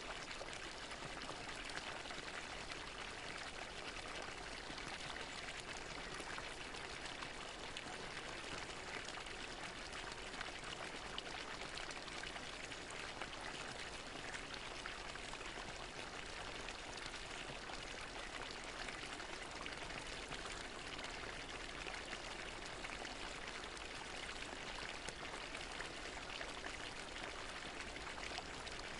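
Fountain water splashing steadily into its basin: an even, unbroken rush with fine droplet splashes throughout.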